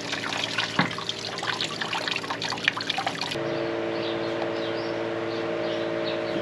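Water splashing and trickling into a newly installed cattle water bowl as it is flushed through. About halfway through, the sound changes abruptly to a steady hum with faint, short chirps.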